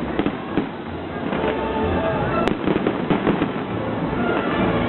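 Fireworks going off in a dense run of bangs and crackles, with one sharper crack about halfway through, over music playing.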